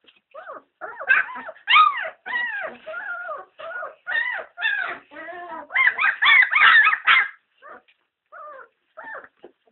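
German Shepherd puppies whimpering and yelping: many short high calls that rise and fall in pitch and overlap. They are thickest for most of the stretch and thin out to a few scattered squeaks near the end.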